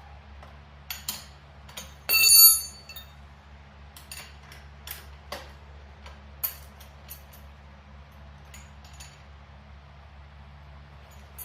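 Wrench and metal flag-mount hardware clicking and clinking as a tight nylon lock nut is worked down the bolt, with scattered short taps and one louder ringing metallic clink about two seconds in.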